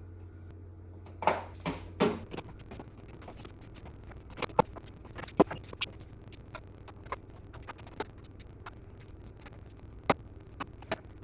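Irregular clicks and light knocks of small hard objects being handled, louder strikes scattered among softer taps. A low steady hum runs under them for the first two seconds or so.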